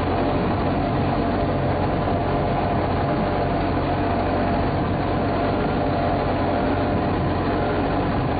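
A vehicle's engine running steadily at an even speed.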